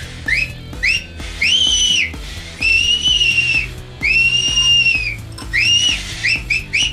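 Shrill whistles blown to provoke a stud bull: two short rising whistles, then three long whistles that each rise, hold and fall, then a quick run of short whistles near the end.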